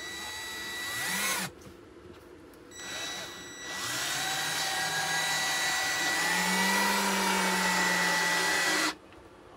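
Ryobi cordless drill driving screws up into undermount sink mounting clips beneath a butcher block countertop. The motor runs with a steady whine: first a short run that stops about a second and a half in, then after a pause a longer run of about six seconds.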